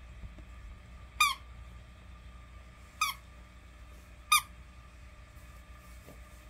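Squeaker in a rubber pig toy squeaking as a dog bites it: three short squeaks a second or two apart, with a fourth just as it ends.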